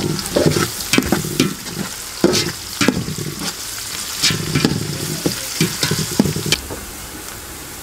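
Sliced onions and whole spices frying in oil in a metal pot, sizzling steadily, while a slotted metal spoon stirs them and knocks and scrapes against the pot in irregular sharp clinks. The stirring stops near the end, leaving the sizzle.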